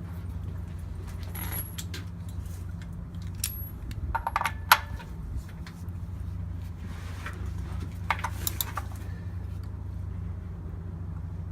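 Scattered metallic clinks and taps of a socket and the oil drain plug as the plug is refitted in the oil pan, with the loudest clink about five seconds in and a few more near the eight-second mark.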